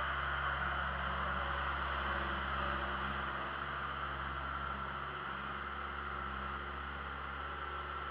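Steady hiss over a low, even hum of a distant engine running.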